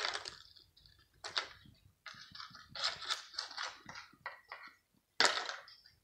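A foil cat-food tray scraping and clattering on stone paving as a cat eats from it and shoves it about: a few short scratchy scrapes, the loudest a little after five seconds in.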